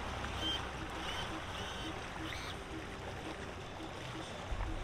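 Outboard motor on a center-console boat running as it manoeuvres, a steady low rumble mixed with the wash of the propeller churning the water.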